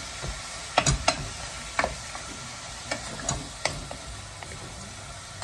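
Minced beef sizzling in a frying pan as it browns, stirred with a wooden spoon that knocks against the pan about six times.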